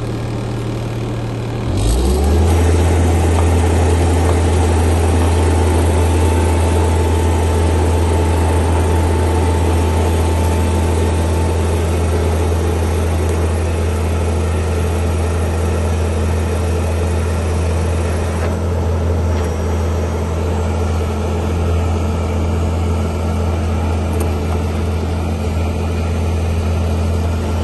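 Skid steer engine running: it picks up speed about two seconds in, then holds a steady, even drone.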